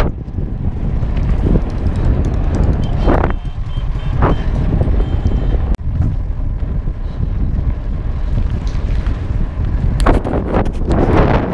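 Wind buffeting the microphone of a riding mountain biker's action camera: a steady low rumble with a couple of brief louder gusts and a longer, louder spell near the end.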